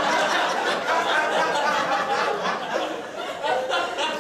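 Audience laughing and chuckling at a joke, dying down near the end.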